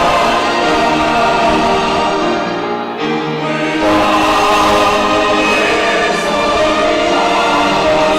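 Church choir singing a sacred anthem in harmony, with instruments behind it; the sound thins briefly about three seconds in, then a new full phrase starts about a second later.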